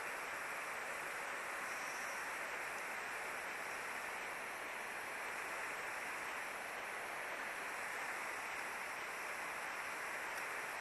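Shallow river water rushing steadily over stones.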